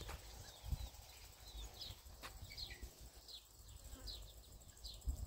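A small bird chirping over and over, short high falling notes about two a second, faint over a low wind rumble.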